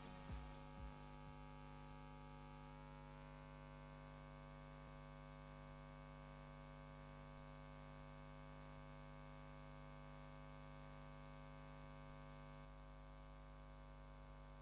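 Faint, steady electrical mains hum with a stack of buzzing overtones, otherwise near silence.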